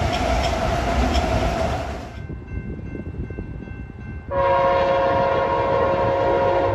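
Train noise with a horn tone for the first two seconds, then a quieter stretch with a faint distant horn. About two-thirds of the way in, a loud locomotive air horn starts a long, steady blast.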